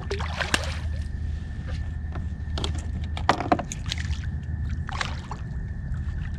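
Water splashing and sloshing at a kayak's side, with scattered knocks and clicks from handling on the hull, over a steady low hum and a thin steady high whine.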